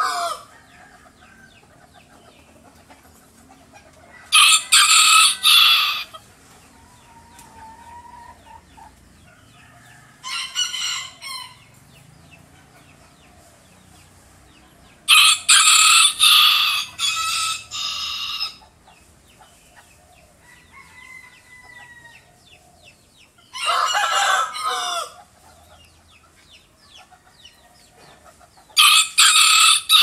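A rooster crowing again and again: five full crows of about one and a half to three seconds each, several seconds apart, one of them fainter, after the tail of an earlier crow at the very start.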